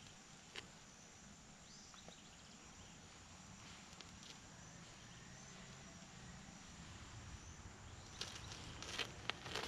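Faint outdoor ambience with a few scattered small clicks and knocks, more of them near the end, and a low rumble building over the last couple of seconds.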